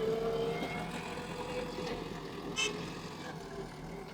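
Heavy machine engine running steadily with a wavering whine, and a brief sharp ringing sound about two and a half seconds in.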